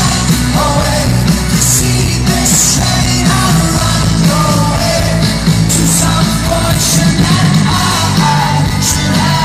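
Rock band playing live, a male lead singer singing over the band; cymbal crashes ring out several times.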